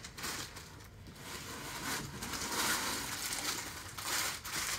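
Packaging rustling and crinkling as clothing is handled and pulled out of it, busier and louder from about halfway through.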